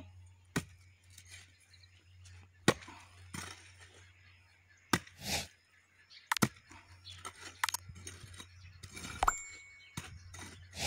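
Small hand hoe chopping into hard, dry soil around the base of a cassava plant: sharp metallic chinks and cracks of the blade striking the ground, irregular, about one strike every second or two, with brief scraping of loosened earth.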